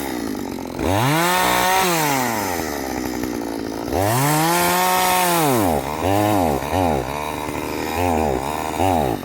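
Chainsaw engine dropping from full throttle to idle, then revved up and down: two longer revs, then several quick throttle blips.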